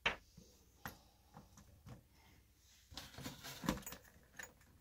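Scattered light clicks and knocks as a wheel is handled and slid onto the front hub of an RC monster truck, with a small cluster of clicks about three seconds in.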